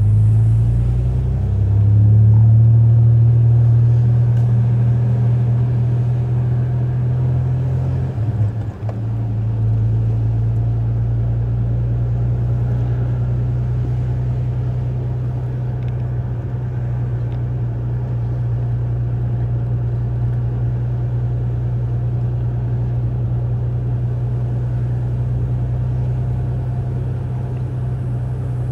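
Chevrolet pickup truck engine running steadily, heard from inside the cab while driving, a constant low drone. It swells briefly just after the start and dips for a moment about eight seconds in.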